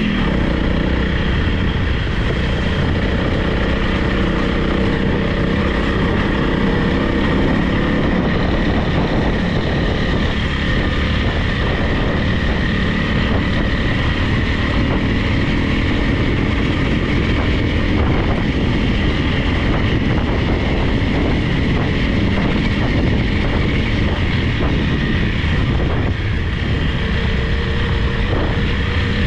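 Honda CRF300 Rally's single-cylinder four-stroke engine running at a steady pace while riding.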